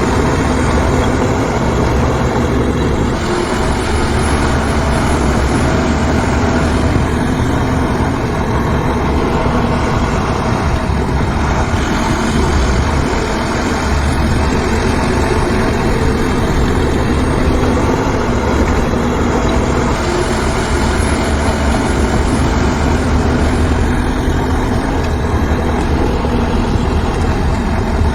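Heavy diesel construction machinery running steadily with a low, continuous rumble; the engine note shifts a few times.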